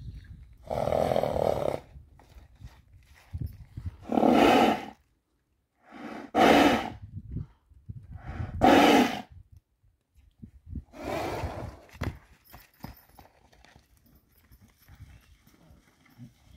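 A horse blowing loud, whistling snorts through its nostrils, five blasts of about a second each, two to three seconds apart, like a whistling kettle: the alarm-blowing of an excited, alert horse.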